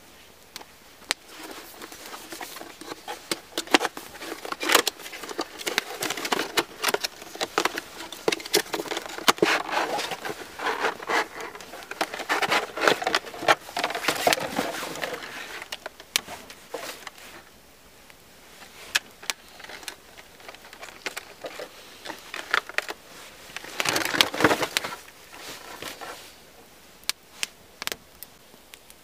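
Cardboard box and clear plastic packaging being handled and unpacked: crinkling and rustling with many small clicks and scrapes. The handling is busiest through the first half, quietens, then comes back in a short burst a little before the end.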